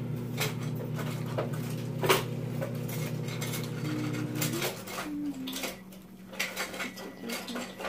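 Chopsticks clicking and scraping against bowls while instant ramen noodles are slurped, over a steady low hum that stops a little past halfway.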